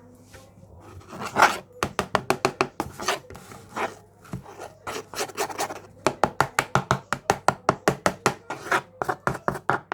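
Pancake batter being beaten in a bowl, the utensil scraping and knocking against the bowl in quick rhythmic strokes, about five or six a second, starting about a second in with a couple of brief pauses.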